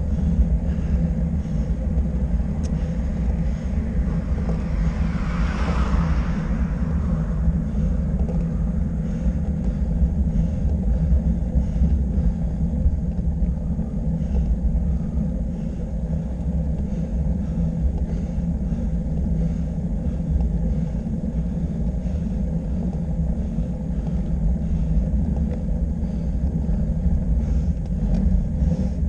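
A motor vehicle's engine running steadily with road and wind rumble as it drives up the road. A brief rushing swell rises and fades about five to seven seconds in.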